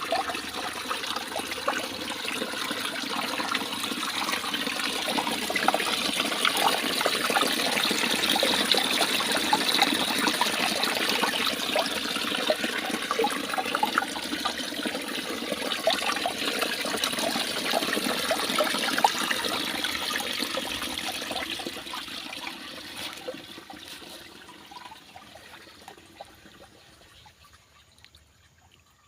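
Small stream running and splashing over stones, a steady rush that fades away over the last several seconds.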